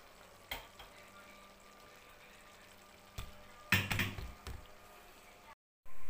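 Kitchen handling noises: a single knock about half a second in, then a short clatter of knocks about three to four seconds in, the loudest part, over a quiet room background. Near the end the sound drops out for a moment and a steady hiss starts.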